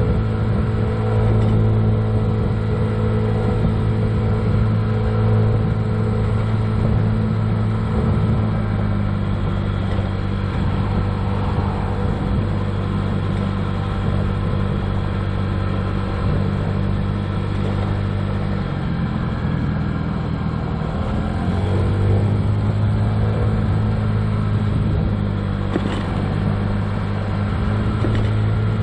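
2007 Honda Ruckus scooter's 49cc four-stroke single-cylinder engine running steadily under way; about two-thirds through, its pitch drops as it slows, then climbs back up as it picks up speed again.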